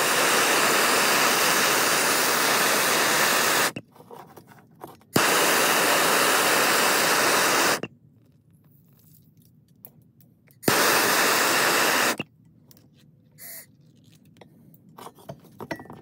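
Handheld MAP gas torch burning with a steady hiss while heating a copper cable lug for soldering. It goes out a little under four seconds in, is relit with a click about five seconds in for a few seconds, then relit with a click again near eleven seconds for a short burst, with faint small handling sounds in the gaps.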